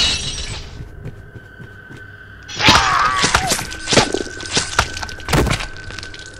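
Horror sound effects of crashing and breaking: a loud burst of noise at the start, then from about two and a half seconds in, some three seconds of crashes, breaking and thuds. A steady high tone runs beneath.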